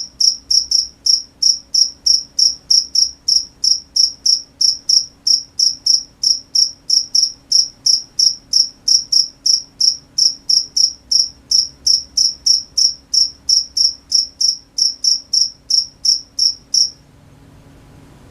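A single cricket chirping loudly in a steady, even run of short high-pitched chirps, about three a second, stopping abruptly near the end.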